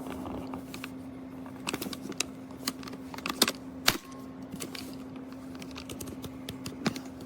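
Irregular light clicks and taps, as of a small plastic lock box being handled, with two sharper clicks about halfway through, over a steady low hum.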